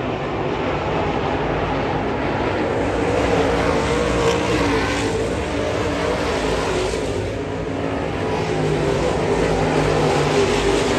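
Dirt late model race car engines running hard, with the pitch drifting up and down as they work through the laps.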